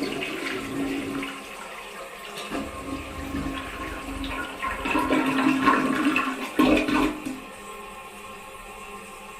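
Toilet flushing: water rushing and gurgling through the bowl, loudest about five to seven seconds in, then dropping to a quieter steady hiss near the end.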